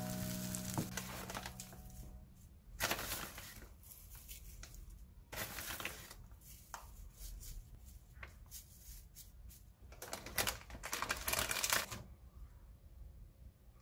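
Several short bursts of crinkling and rustling from a plastic packet of dried bonito flakes being handled and shaken out over the pancake, the longest near the end. The tail of a piano tune fades out at the start.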